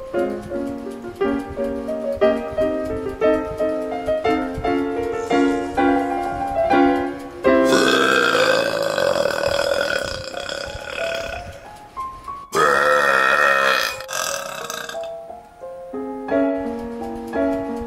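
A man's long, loud burps, produced without a carbonated drink, over background piano music. The first starts about seven and a half seconds in and lasts about four seconds, rising and then falling in pitch. A shorter, wavering burp follows about five seconds later.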